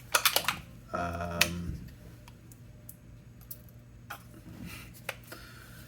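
Small plastic clicks and taps from acrylic paint bottles being picked up and handled, a quick cluster at the start and then scattered single ticks, with a short pitched squeak about a second in.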